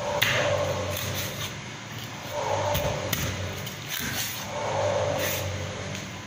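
Large kitchen knife cutting through a whole grouper, sawing through skin and bone and knocking onto a plastic cutting board several times.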